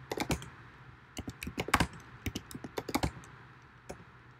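Typing on a computer keyboard: a quick, irregular run of key clicks that stops about three seconds in, with one more click near the end. A faint steady low hum runs underneath.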